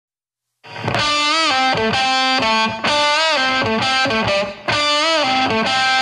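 Rock background music led by a distorted electric guitar playing notes that bend up and down. It starts suddenly after a moment of silence.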